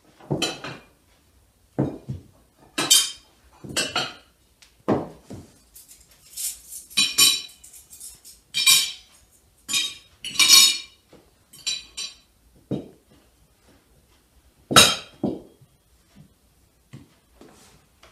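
Plates and cutlery clinking and knocking on a set dining table as roast chicken is served onto plates: a string of separate clinks and duller knocks, roughly one a second, with the loudest clink late on.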